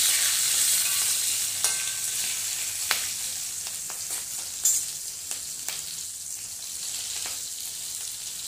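Green chillies and curry leaves frying in hot oil in a kadai: a steady high sizzle with scattered sharp pops and crackles, easing off somewhat over the seconds.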